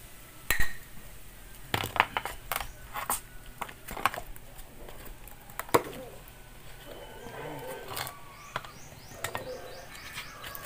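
Irregular sharp knocks and chops of a hatchet working on an old motorcycle tyre and wood, a dozen or so strikes at uneven intervals. Birds chirp faintly in the background.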